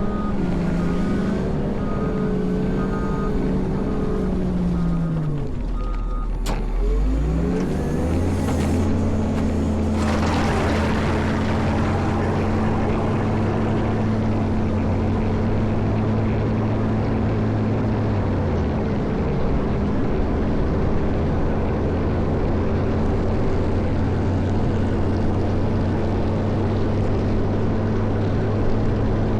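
Caterpillar 140M motor grader's diesel engine running, with a reversing alarm beeping over the first few seconds. The engine's pitch drops sharply about six seconds in and climbs back again. From about ten seconds in, a steady rushing noise joins the even engine note.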